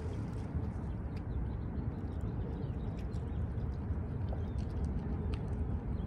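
Small waves lapping and splashing among shoreline rocks, with scattered light clicks of water, over a steady low rumble of wind on the microphone.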